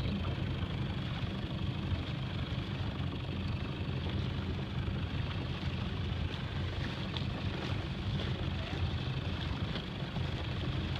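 A motorboat's engine running steadily under way, with wind and water noise over it.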